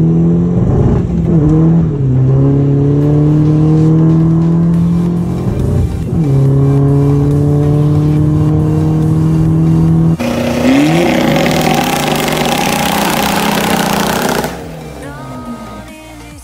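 Tuned VW Golf V 2.0 TDI diesel (BKD engine, remapped to about 308 hp) accelerating hard through the gears, heard from inside the cabin. The engine note climbs steadily in each gear and drops at each of three upshifts. A loud rushing hiss builds over the last few seconds, then the sound falls away near the end.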